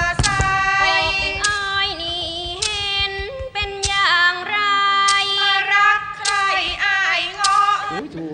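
A woman singing in Thai classical style, as for lakhon dukdamban dance-drama, drawing out long, wavering, ornamented notes. Sharp percussion strikes mark the phrases.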